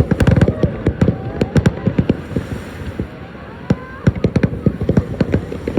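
Aerial fireworks going off: a rapid run of bangs and crackles in the first second, then scattered booms and pops.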